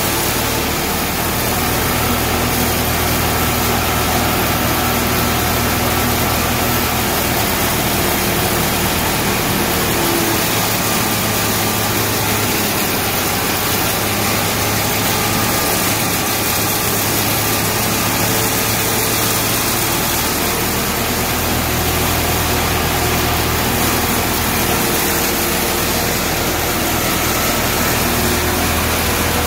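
Portable hammer mill grinding hay as it is forked into the feeder, running steadily along with the engine that drives it.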